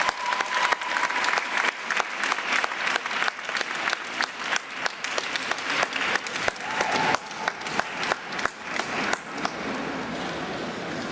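Audience applauding a figure skater as her program ends, many hands clapping without a break.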